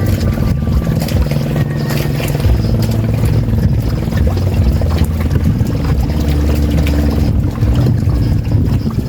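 Boat engine running close by, its low drone shifting in pitch every second or two.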